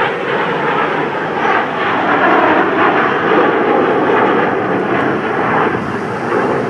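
Loud, steady engine noise of a fixed-wing aircraft flying over.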